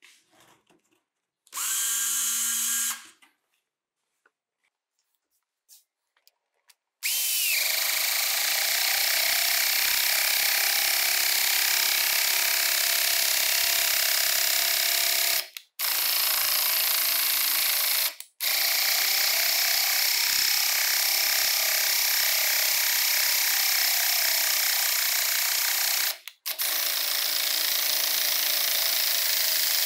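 Hitachi 12V silent impact driver briefly spun free with the trigger, then driving long wood screws into a log in long runs, stopping and starting three times.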